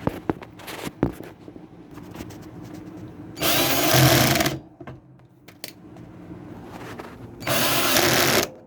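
A power drill-driver runs twice, for about a second each time, driving home fasteners, with small clicks and handling knocks in between.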